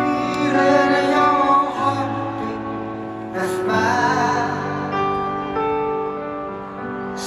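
Live band music with a singer over a stadium PA: a slow passage of held notes and chords.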